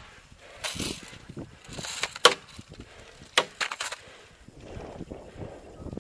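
Airsoft gun shots: a single sharp shot about two seconds in, then a quick string of four about a second later, between rustling movement.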